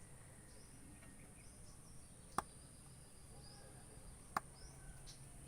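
Two sharp clicks about two seconds apart, over faint bird chirps and a steady high insect-like hiss.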